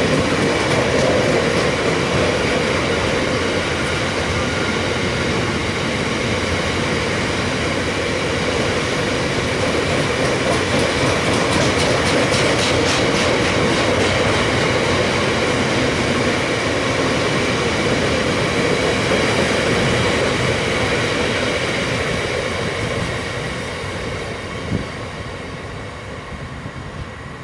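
Freight train of biomass hopper wagons rolling past at speed, with a steady roar of wheels on rail and a run of rapid ticking around the middle. The sound fades over the last few seconds as the tail of the train pulls away.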